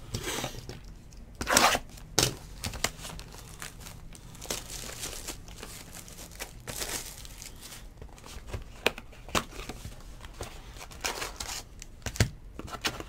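Tearing and crinkling as a sealed hobby box of trading cards is unwrapped and its cardboard lid opened, in several short rustling bursts with scattered clicks.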